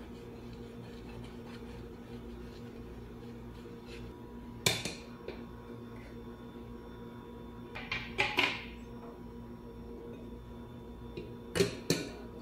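A ceramic plate and a metal cake pan knocking together as the plate is laid over the pan and the two are flipped. There is a sharp clink about a third in, a short run of knocks about two-thirds in, and two knocks near the end as the upturned pan comes down on the plate. A steady faint hum runs underneath.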